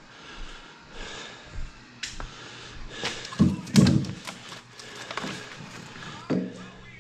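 Split firewood logs thunking and knocking together as they are handled and stacked: a handful of separate hollow knocks, the loudest two close together about halfway through.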